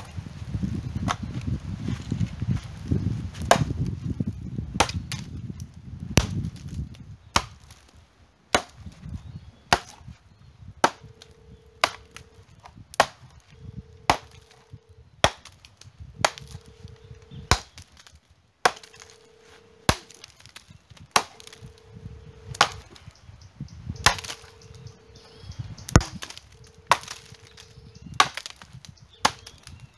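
A heavy 14-inch machete chopping dry jurema wood on a tree stump: sharp wooden strikes, about one a second.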